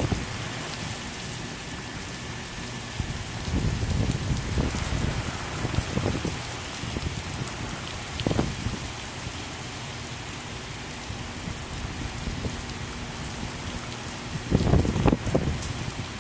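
Heavy rain pouring down in a steady hiss. A few short low rumbles break in, the loudest cluster near the end.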